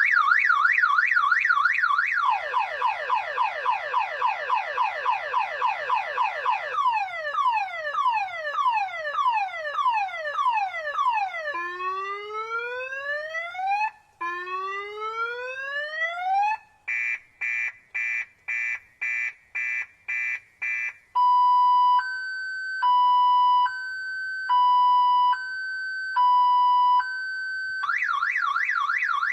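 Car alarm siren stepping through its cycle of tones: a fast warble, then rapid falling sweeps, slower falling sweeps, two long rising whoops, quick beeps at about two a second, and a high-low two-tone, with the warble starting again near the end.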